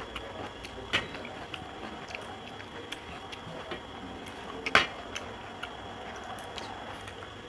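Sharp clinks of a bowl and dish against a metal plate and soft squishing of mashed roasted aubergine being scraped and mixed with rice by hand. Two clinks stand out, one about a second in and a louder one a little before five seconds in.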